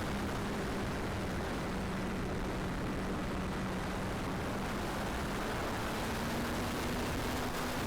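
Strong wind noise on the microphone, with the steady hum of a Durafly Excalibur V2 model glider's electric motor and propeller in flight; the hum rises slightly in pitch about six seconds in.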